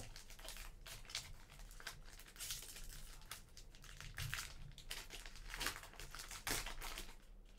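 Foil wrapper of a Panini Mosaic soccer trading-card pack crinkling and rustling as the pack is opened, in a string of irregular rustles and small clicks.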